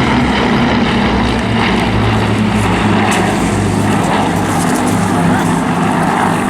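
Piston-engined propeller aircraft droning overhead in formation: the Blenheim's Bristol Mercury radials and two Spitfires' Rolls-Royce Merlin V12s. The drone is steady, and its engine tones shift slightly in pitch as the formation passes.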